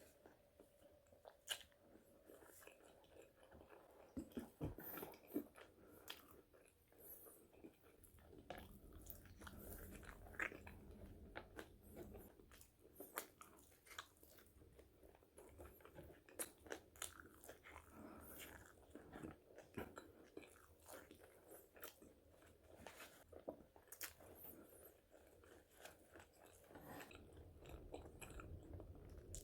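A person quietly chewing and biting into French fries, with irregular crunches and small clicks.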